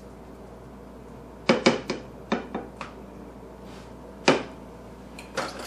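A spatula knocking and scraping against a skillet as a thick chicken-and-cream filling is stirred. There is a quick run of sharp clacks about a second and a half in, another single clack near four seconds, and a couple more near the end, over a steady low hum.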